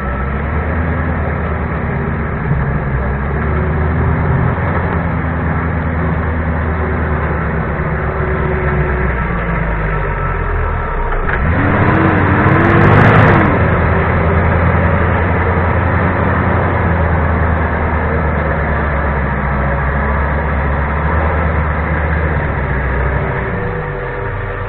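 A 4x4's engine held at high revs under load as it works in deep mud, the revs dipping and climbing again about eleven seconds in and falling away near the end. A loud rushing burst lasting a second or so comes about twelve seconds in.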